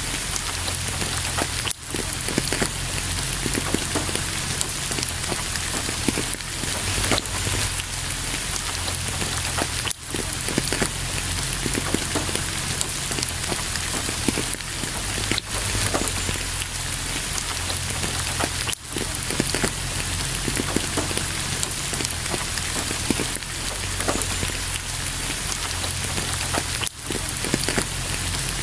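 Steady rain: a dense hiss of raindrops with many close individual drop hits, dipping briefly about every eight seconds.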